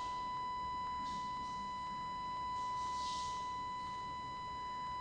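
Steady 1 kHz sine-wave test tone from a function generator, played through an audio amplifier and loudspeaker, holding one pitch with faint overtones. A few soft rustles come and go over it.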